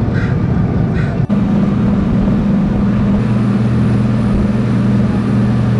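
Motorboat engine running steadily under way, a continuous low drone with a brief break about a second in.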